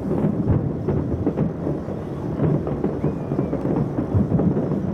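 Many fireworks shells bursting in quick succession, their booms and crackles merging into a continuous rumble.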